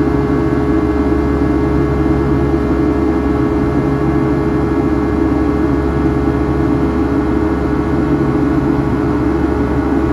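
Cabin noise of a Boeing 757-200 in flight, heard from a window seat ahead of the wing: its Rolls-Royce RB211-535E4 turbofans make a loud, steady drone with several steady humming tones over a low rumble.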